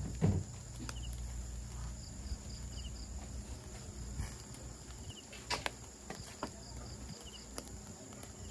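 Insects trilling and chirping steadily in the open air, with a short double chirp repeating every couple of seconds. A few soft knocks and clicks sound over it, the loudest just after the start.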